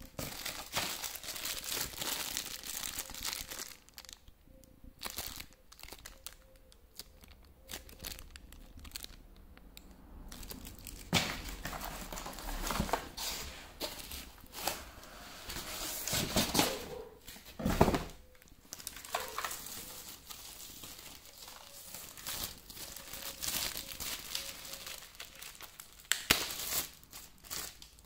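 Plastic wrapping and a foam packing sheet crinkling and rustling as hands pull them out of a cardboard box, in irregular bursts. It is louder around the middle and again near the end.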